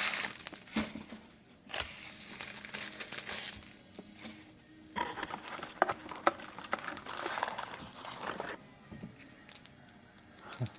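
Foil booster-pack wrappers crinkling and tearing as trading-card packs are opened, in stretches of a few seconds with a few sharp clicks.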